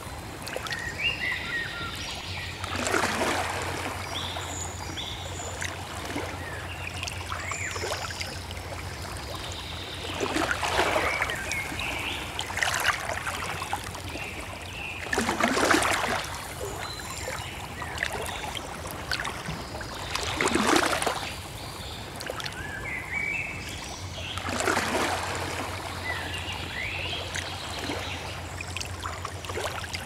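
Water lapping and splashing at the surface in surges every few seconds, with small birds chirping in short calls.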